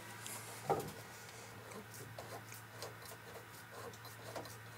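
Washing machine hose's metal coupling being unscrewed by hand from a laundry shutoff valve: faint rubbing and small clicks, with one light knock about a second in, over a low steady hum.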